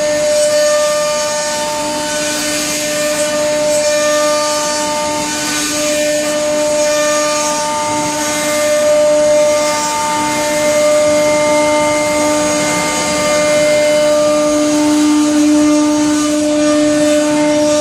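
CNC router spindle running at a steady whine while it cuts, with a hiss of cutting noise over it.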